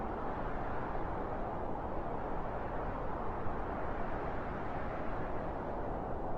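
Soft wind, a steady low rushing noise with no gusts or separate events.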